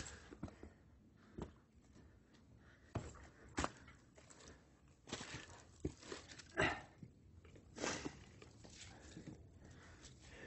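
A hiker's footsteps crunching on a trail, in uneven, spaced-out steps.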